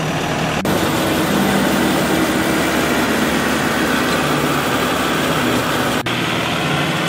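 World Ruilong crawler combine harvester running under load as it cuts rice: a steady engine drone under a dense, loud machinery noise.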